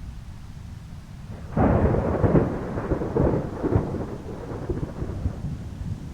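A thunderclap: a sudden loud crack about one and a half seconds in that rolls on in several crackling rumbles and slowly dies away, over a steady low rumble of a thunderstorm.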